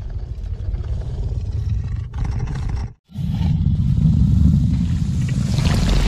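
Film creature sound effect of a Carnotaurus: a deep growl, cut off about three seconds in and followed by a second, louder and heavier growl.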